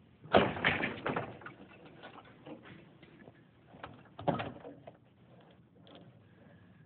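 Traverse rod rattling and scraping in its drop-in end bracket as it is set in place: a clattering burst about a second long at the start, and a shorter one about four seconds in.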